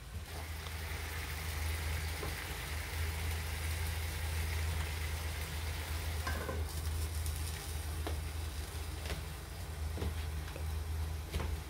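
Pork-loin-wrapped eggplant rolls sizzling as they fry in a frying pan, with a few light clicks over a steady low hum.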